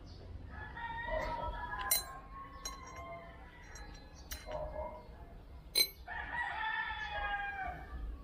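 Two long pitched bird calls, one about a second in and a longer one near the end that falls in pitch as it ends. Between them come a few sharp metal clinks from the scooter torque drive's metal parts being handled, the loudest just before the second call.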